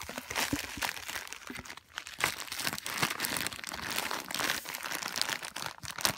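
Plastic bubble-wrap packaging crinkling and crackling as hands handle it and lift it out of a cardboard shipping box, with many irregular small crackles.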